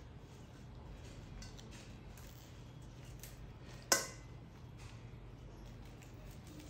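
Faint rustling and small ticks of leafy greens being handled, with one sharp metallic clink and brief ring about four seconds in as the baby monkey grabs the rim of the metal bowl.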